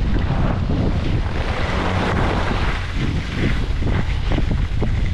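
Wind buffeting the microphone of a camera carried by a skier moving downhill, over the hiss and scrape of skis sliding on packed snow, which swells and fades a couple of times.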